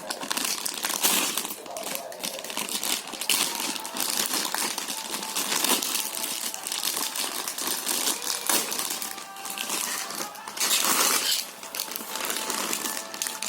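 Plastic packaging crinkling and rustling as it is handled, in many short irregular crackles, louder for about a second near the end.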